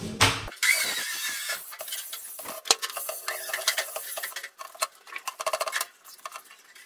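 A thin laminate sheet flexing and rattling as it is handled, then quick repeated rubbing and scraping strokes by hand across a plywood board and the laid laminate, with scattered small clicks.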